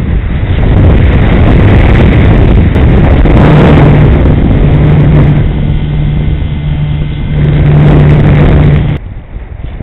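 Wind rushing loudly over the microphone of a camera on a small electric RC plane in flight, with a steady propeller and motor hum that comes in about a third of the way through. The sound drops off sharply near the end.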